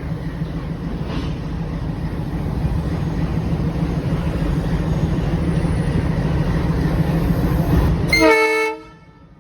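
WDG3A diesel-electric locomotive idling with a steady low hum, its 16-cylinder ALCO engine running. About eight seconds in, a short horn blast sounds and the sound then cuts off abruptly.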